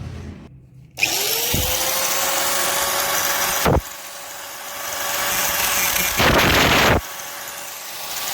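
A small electric motor, like a hand drill, switching on about a second in, spinning up to a steady whine and running. It has two short louder bursts and cuts off suddenly near the end.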